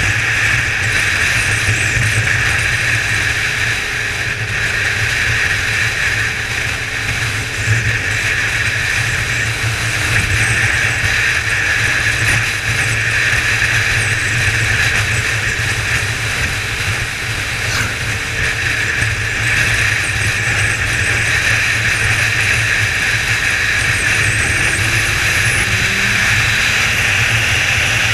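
Kawasaki ZZR 1400's inline-four engine running steadily at cruising speed, under a steady rush of wind noise over the camera.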